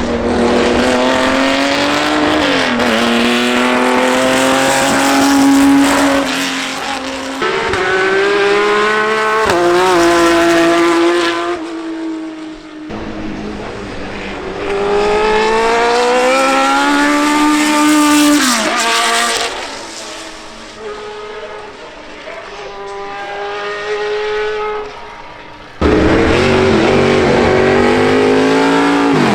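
High-performance car engines accelerating hard through the gears, each run's pitch climbing and then dropping sharply at every upshift. Several separate runs are cut together, with abrupt changes about 13 and 26 seconds in.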